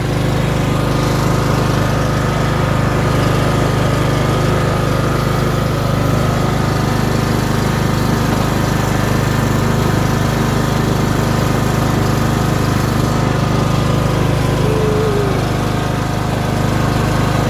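Cub Cadet riding mower's engine running steadily at a constant speed.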